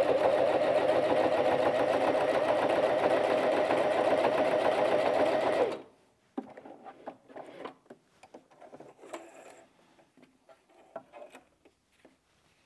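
Bernette 05 Academy heavy-duty mechanical sewing machine stitching steadily through eight layers of folded denim with a jeans needle, going through without trouble, then stopping abruptly about six seconds in. Faint scattered clicks follow.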